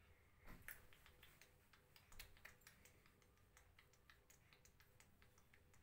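Near silence with faint, irregular soft taps: a toddler clapping her small hands.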